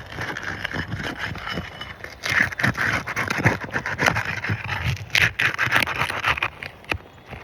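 Roof snake scraping and prying under asphalt shingles in repeated, irregular strokes, breaking the shingles' sealant bond, heavier from about two seconds in.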